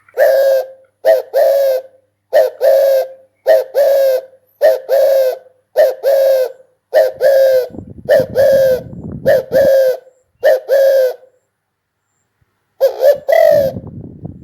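Spotted dove cooing: a loud coo phrase repeated about every second, in short-then-longer note pairs. It pauses about 11 seconds in and resumes a second and a half later.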